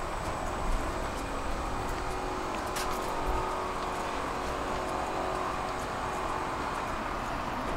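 Tram in motion: a steady whine of several held tones over a low rumble from the wheels on the rails, with one sharp click about three seconds in.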